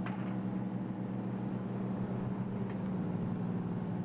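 An engine running at a steady speed, giving a low, even drone.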